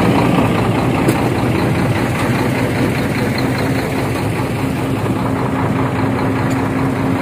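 Large truck engine idling steadily, with a steady low hum joining about two and a half seconds in.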